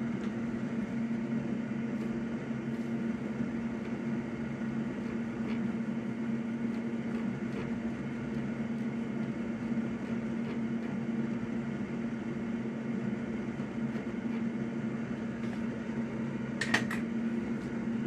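A bench fan motor running with a steady pitched hum, with a couple of faint clicks near the end.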